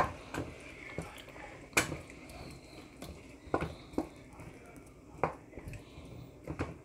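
Wooden spoon stirring chicken pieces in coconut milk in a coated pan, with scattered knocks of the spoon against the pan, the loudest about two seconds in.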